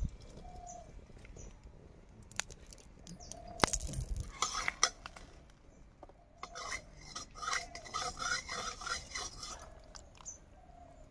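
A metal spoon scraping and clinking against an aluminium kadai as it is stirred, in two spells of quick repeated strokes, the longer one in the second half.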